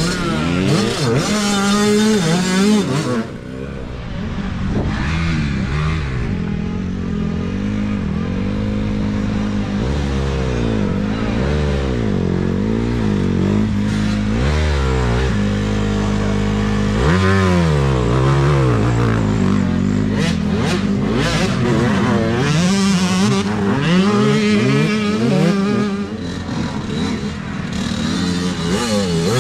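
Small youth dirt bike engines revving hard and easing off as riders come through a muddy corner one after another, the pitch climbing and dropping over and over with the throttle and gear changes.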